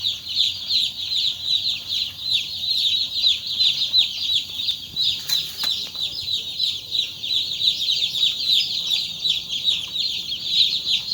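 Many young chicks peeping at once, a dense unbroken chorus of high cheeps, with a single sharp knock about five seconds in.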